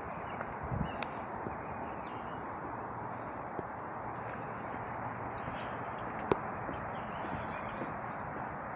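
A songbird singing three short phrases, each a quick run of downslurred whistled notes, over a steady outdoor background hiss. A single sharp click stands out about six seconds in.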